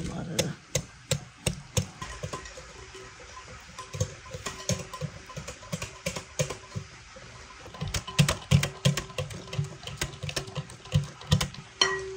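A utensil clicking and knocking against a bowl while batter is mixed by hand, in irregular strokes that come faster about eight seconds in.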